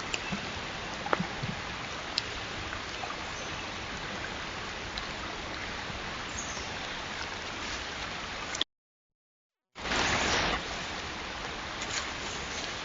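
A steady rushing noise, like running water or rain, with a few faint scattered ticks. Around nine seconds in it cuts out completely for about a second, then comes back with a short louder rush.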